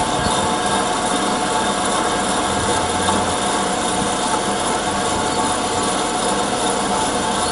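Cosen SH-1016 bandsaw running steadily, its blade cutting through stock as the bow feeds down, a continuous mechanical noise with a few steady whining tones.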